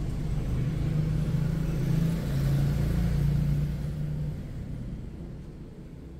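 A motor vehicle's engine running steadily with a low hum, its pitch shifting slightly about two seconds in, then fading away after about four seconds.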